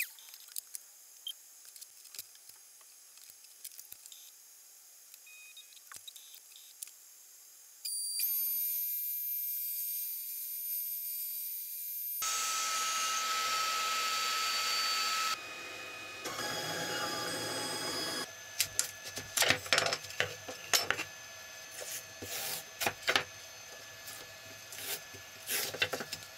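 Makita router spindle on a CNC machine cutting Iroko hardwood, a steady high whine and hiss that shifts abruptly in level several times, quieter with scattered clicks at first. From about two-thirds of the way in, a run of sharp knocks and scrapes as the carved board is handled on the spoilboard.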